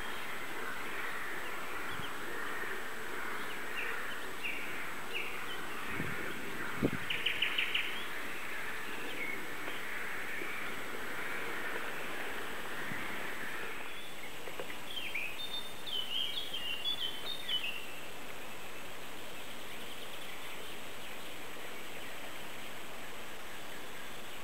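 Birds chirping and calling over a steady outdoor background noise, with a quick run of repeated notes about seven seconds in and another burst of short calls a little after the middle.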